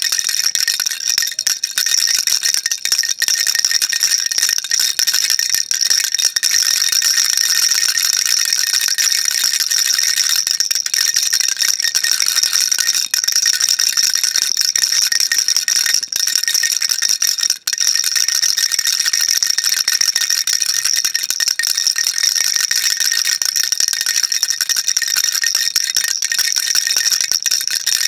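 Baby rattle shaken continuously: a dense, even rattling of small beads, bright and high-pitched, with one very brief break about two-thirds of the way through.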